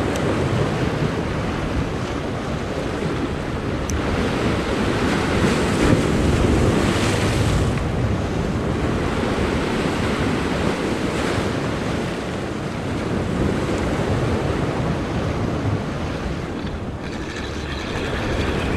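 Ocean surf washing and splashing against the rocks just below, a steady rush that swells louder about six seconds in as a wave breaks into spray, with wind buffeting the microphone.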